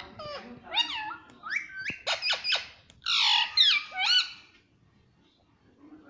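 Ringneck parakeet giving a quick run of sharp, falling squawks and chirps for about four seconds, with the loudest, harshest squawk about three seconds in.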